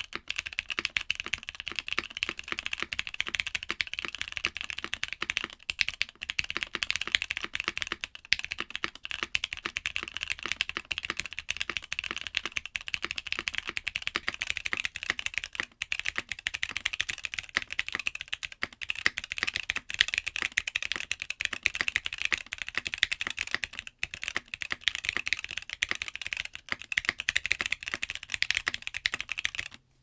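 Fast, continuous typing on a Mode Sonnet mechanical keyboard (FR4 plate, top mount) with Gateron Golden Cap V2 switches. The first half is the switches stock, their factory lube softening the bottom-out and muting it slightly. After a short pause about halfway through come the same switches with the lube cleaned out ultrasonically, bottoming out hard on the rails.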